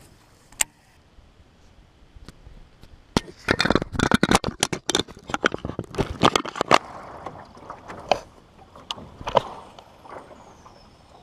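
Close handling noise: a dense flurry of knocks, clicks and rubbing for about three seconds, then a few single knocks.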